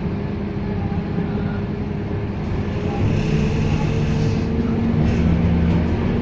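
Scania K230UB city bus's five-cylinder diesel engine running, heard from on board the bus. It grows louder about three seconds in, with stronger engine tones.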